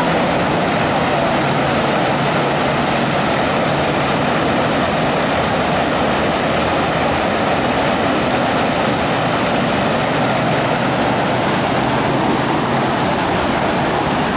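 Loud, steady rush of whitewater churning through the rapids of an artificial slalom course.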